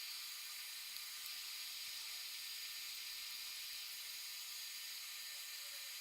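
Steady high-pitched hiss with almost no low end.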